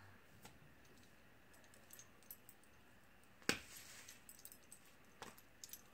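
Near silence with a few faint, short clicks or taps, the sharpest about three and a half seconds in.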